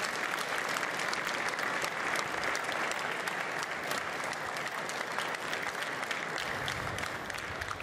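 A large audience applauding steadily: the dense, even patter of many hands clapping.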